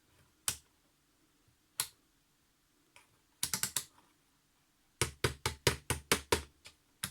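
Rotary selector switch of an OWON B35T multimeter clicking through its detent positions: two single clicks, then a quick run of about five, then a faster run of about ten, and one last click. The switch is being turned to check that it now holds its setting after its play was repaired; it seems stable.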